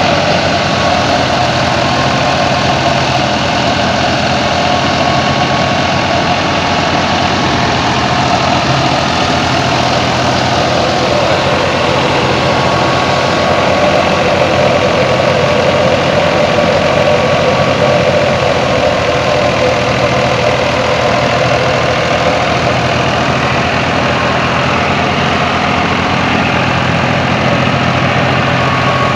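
Old Fiat 480 tractor's diesel engine running steadily while driving a wheat thresher, the machine's constant whirring mixed in with the engine.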